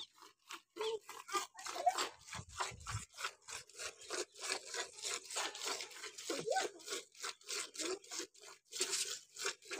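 Hand-milking a Kankrej cow: jets of milk squirting from the teats into milk already in a steel bucket, in a quick, even rhythm of short hissing spurts.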